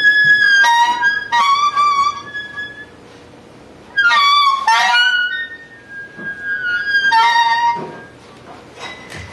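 Improvised music: a high, wind-instrument-like tone played in short phrases, some held and some sliding in pitch, with pauses between them.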